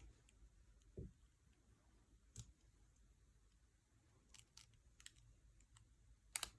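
Near silence with a few faint scattered clicks and taps of small parts being handled, the sharpest pair near the end.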